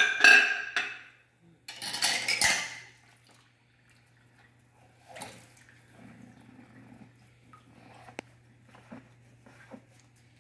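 Dishes and a glass bowl clattering and clinking against each other and the stainless steel sink as they are hand-washed with a sponge. Two loud spells of clatter come in the first three seconds, followed by scattered lighter clinks.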